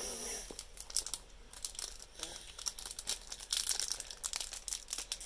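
Pokémon booster pack's crinkly plastic wrapper being handled and torn open: a run of irregular crinkles and crackles.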